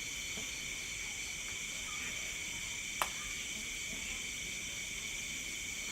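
Night insect chorus of crickets: a steady, high-pitched, unbroken trilling, with a single sharp click about three seconds in.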